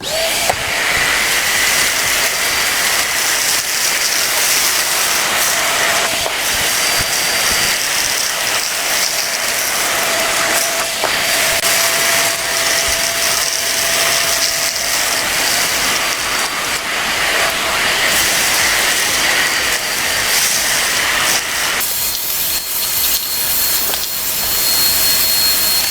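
AUX wet-and-dry vacuum cleaner with a copper-wound motor running steadily, a loud whine and rush of air as it sucks up small stones, dust and soil, with scattered clicks of grit going up the hose. About four seconds before the end the sound thins and a higher whistle comes in.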